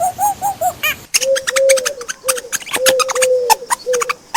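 Repeated short, low bird calls, each a single pure arched note, about two a second, with sharp clicks or chirps over them from about a second in.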